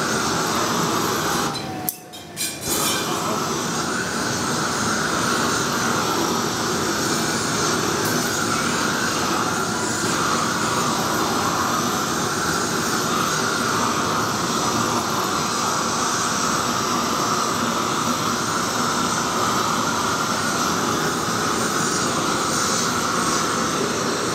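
Steady roaring hiss of gas burners in a glassblowing hot shop, with a hand-held gas torch playing on the glass. The sound dips out briefly about two seconds in.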